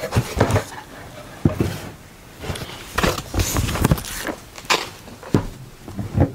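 Cardboard boxes and packaging being handled: a series of knocks, scrapes and rustles as the boxes are moved and set down.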